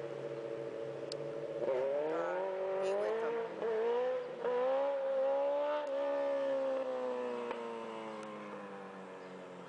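Sport motorcycle engine holding a steady note, then accelerating hard through the gears: the pitch climbs and drops back at each of about three shifts. Near the end the note slowly falls in pitch and fades as the bike pulls away.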